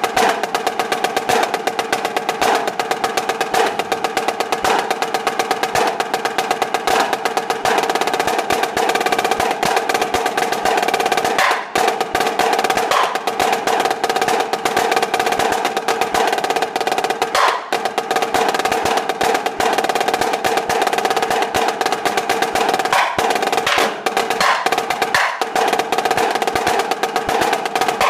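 Tama marching snare drum played solo with sticks: fast, dense rudimental passages and rolls with the head's ring sustained under the strokes, broken by two brief gaps.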